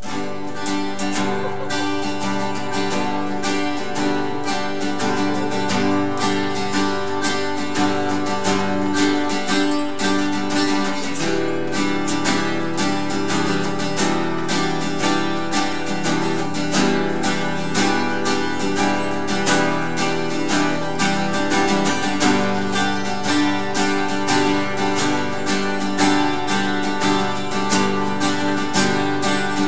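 Acoustic guitar strumming chords in a steady rhythm, an instrumental passage of a song with no singing. The chords shift, with fuller low notes, about eleven seconds in.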